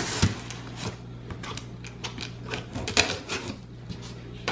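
Cardboard shipping boxes knocked and shifted on a wooden table, then a knife scratching at the packing tape on a box's seam: irregular knocks and scratchy clicks, with a firmer knock at the start. A steady low hum runs underneath.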